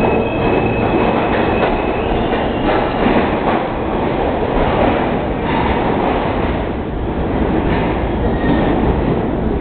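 An R32 subway train running on the track, with steady wheel and rail noise and clicks as the wheels cross rail joints. A thin high wheel squeal fades out about two seconds in.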